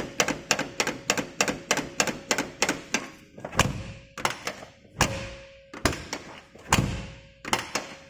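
Porsche 993 outer door handle being pulled and let go again and again: a fast run of sharp clicks, about three or four a second, with a few heavier thunks in the middle. The handle is springing back down on its newly adjusted return spring instead of sticking at the top.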